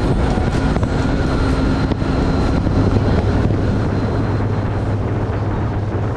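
Bass boat running at speed under outboard power: a steady low engine drone under heavy wind noise on the microphone.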